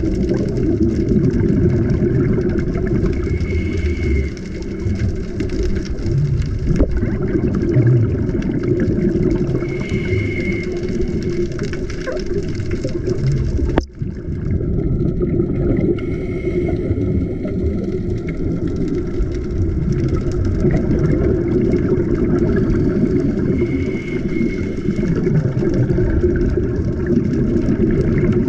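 Muffled underwater sound picked up by a GoPro in its waterproof housing: a steady low rumble of water noise with divers' regulator breathing and exhaled bubbles coming and going every several seconds. The sound briefly drops out about halfway through, where the footage cuts.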